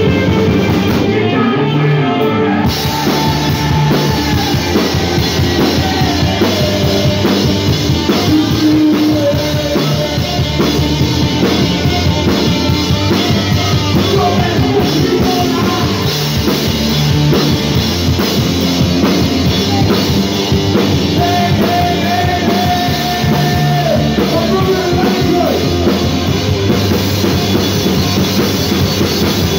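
Live rock band playing a song: distorted electric guitars and a full drum kit, with a male singer's vocals over them.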